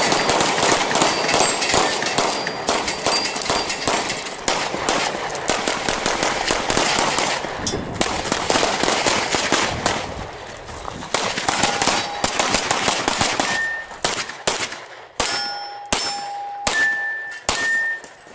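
Rapid handgun fire in practical pistol competition, shots coming several times a second, with steel targets ringing when hit. In the last few seconds the shots thin out into separate strikes, several followed by a clear ring from a struck steel plate.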